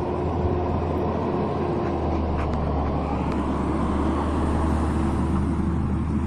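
A motor vehicle's engine running steadily: an even low rumble that holds without rising or falling.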